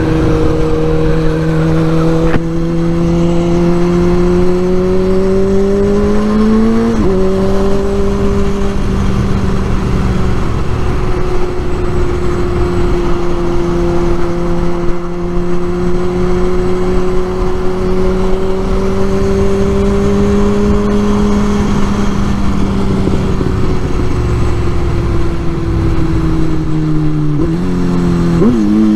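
2004 Kawasaki Z1000's inline-four engine through a full Arrow exhaust system, under way on the road. Revs climb to an upshift about seven seconds in, then hold fairly steady, with rev changes again near the end, over low wind rumble.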